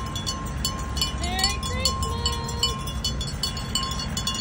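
Low steady rumble of farm tractor engines driving past in a procession, with a rapid high jingling like bells over it.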